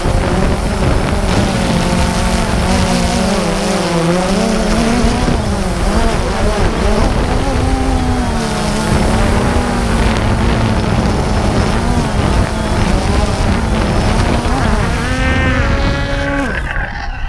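Quadcopter drone's electric motors and propellers whirring right at the on-board camera, the pitch wavering up and down as it descends and hovers. Near the end the pitch rises briefly, then the motors stop abruptly.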